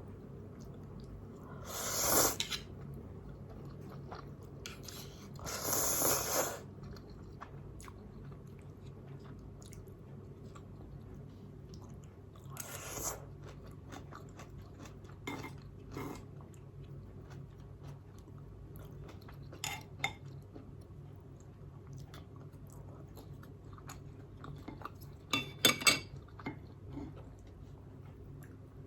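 Close-miked eating of spicy instant noodles: soft chewing throughout, with three louder noisy bursts of about a second each near the start and middle, and scattered sharp clicks that cluster near the end.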